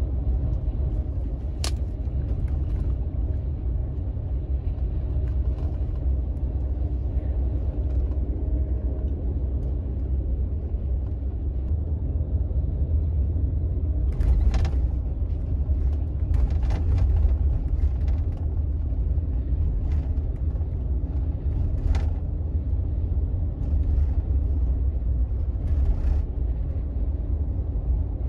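Steady low road and engine rumble inside the cabin of a double-decker highway bus cruising on an expressway, with occasional short knocks and rattles, more of them in the second half.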